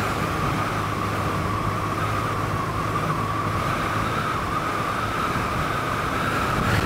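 Motorcycle riding at a steady speed: a steady low engine hum under road and wind noise, with a steady high whine over it.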